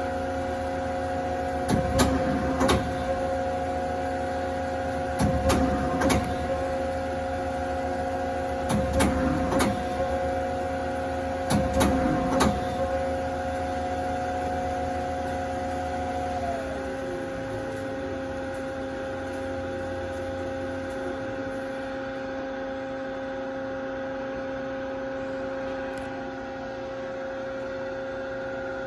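Hurco TM10 CNC turning center running with a steady two-tone machine hum. Pairs of short clunks repeat about every three and a half seconds for the first 13 seconds. About 16 seconds in, the higher tone winds down and stops, leaving a steady lower hum.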